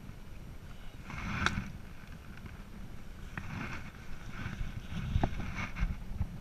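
Wind rumbling on the microphone, with short rustles and clicks of clothing and gear being shifted; the sharpest click comes about a second and a half in.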